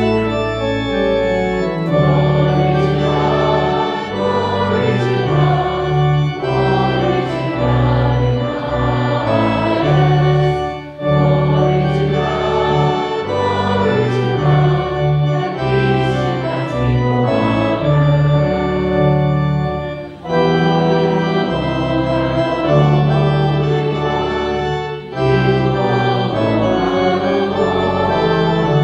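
Church organ playing a hymn in sustained chords over held bass notes, moving in phrases with brief breaks between them.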